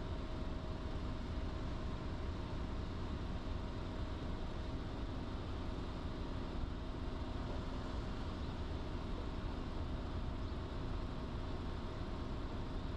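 A car driving at a steady speed: a constant low rumble of engine and tyre noise from the road.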